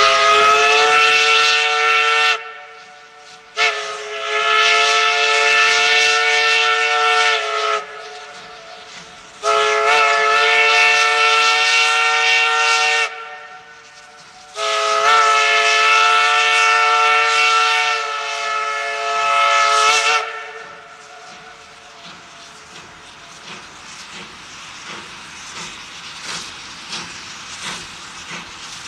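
Steam whistle of Baldwin 2-6-2 locomotive No.12 sounding four blasts, each a few seconds long and at the same pitch, the last the longest. After the whistle stops, a much quieter steam hiss with faint regular beats.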